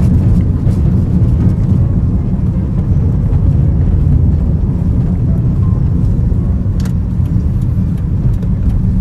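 Steady low road and engine rumble heard inside a moving car's cabin, with one short tick about seven seconds in.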